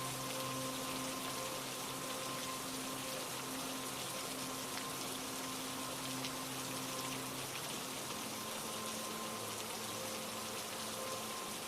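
Steady rain falling, an even hiss of drops. Underneath it a soft held drone of several tones, which moves to a lower note about two-thirds of the way through.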